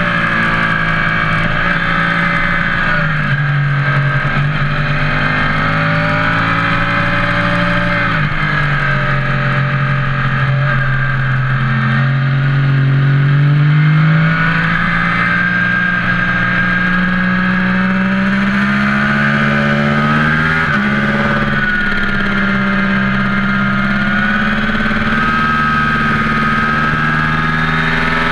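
An engine running steadily at a constant loudness, its pitch drifting slowly up and down with a few sudden jumps.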